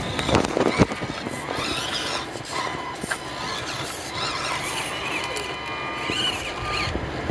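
Tiny electric motors and gearboxes of 1/24-scale Axial SCX24 RC crawlers whining, the pitch rising and falling with the throttle. A cluster of clattering knocks comes about half a second in.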